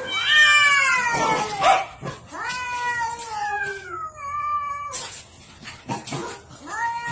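Cats yowling at each other in a standoff: a series of long, drawn-out calls, each sliding down in pitch, with short gaps between them.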